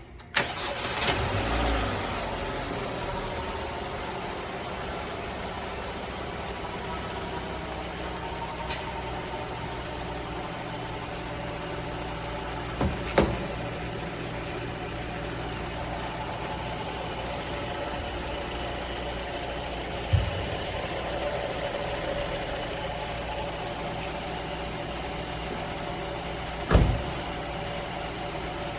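A car engine starts up, surges for a second or two, then settles into a steady idle. Three short knocks come through it partway through and near the end.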